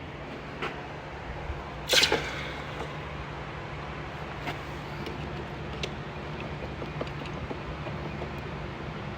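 Hand tools working a bolt on an engine bracket: one loud metal clank about two seconds in, then a few light clicks and taps, over a steady low hum.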